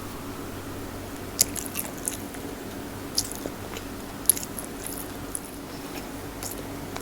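Close-miked mouth sounds of eating, chewing and biting, with a scatter of sharp crunchy clicks; the loudest come a little over a second in and about four seconds in.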